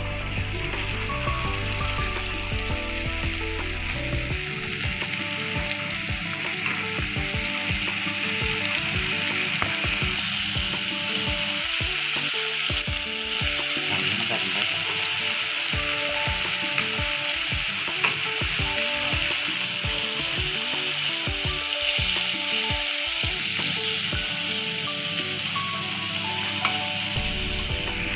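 Chicken pieces coated in cornflour deep-frying in hot coconut oil in an iron wok: a steady sizzle, stirred now and then with a slotted metal spoon. The sizzle grows a little louder about ten seconds in.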